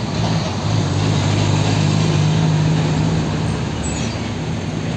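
Diesel engine of a Hino 500 tractor truck hauling an ISO tank container trailer, running with a steady low drone as it drives past. It is loudest about two seconds in and fades a little as the truck moves away.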